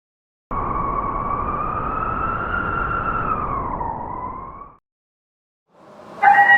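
Howling blizzard wind: a whistling moan over a rushing rumble that slowly rises and falls in pitch, then cuts off abruptly just before five seconds in. A second loud sound with several steady tones swells in near the end.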